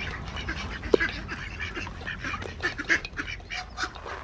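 Ducks quacking and calling in many quick short calls, with a sharp knock about a second in.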